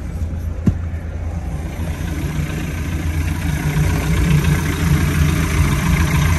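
Mercury MerCruiser 3.0 four-cylinder sterndrive engine idling steadily in neutral, growing louder from about halfway as it is heard from the open engine compartment. A single knock about a second in.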